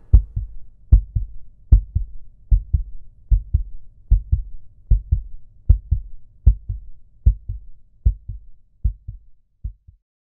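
Heartbeat sound effect: low double thumps, lub-dub, about 75 a minute, growing fainter toward the end and stopping just before the close.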